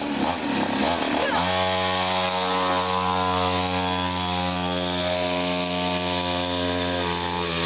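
Mini quad's small petrol engine pulling away under throttle. After about a second and a half its pitch settles, and it runs at a steady high speed.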